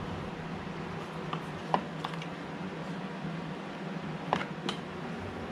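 A few light clicks and taps of small carburetor parts and gaskets being handled and fitted during reassembly, over a steady low hum.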